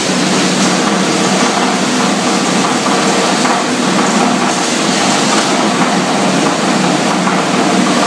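Industrial plastic shredding machinery running: a steady, loud drone and hiss of motors, blower and cutting rotors, with no distinct knocks.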